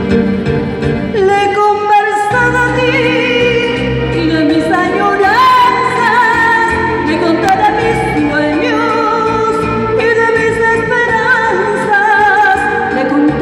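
A woman singing with vibrato into a handheld microphone over instrumental accompaniment, her voice coming in about a second in.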